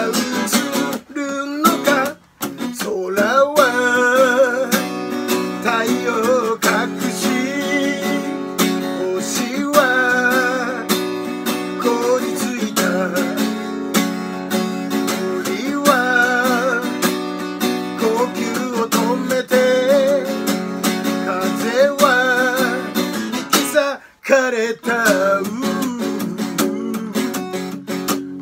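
Acoustic guitar strummed in chords with a man singing along, his held notes wavering. The sound drops out briefly about two seconds in and again about 24 seconds in.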